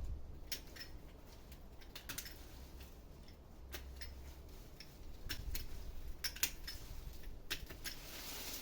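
Garden secateurs snipping chrysanthemum stems: a dozen or so sharp, uneven clicks as the blades close, over a faint low rumble.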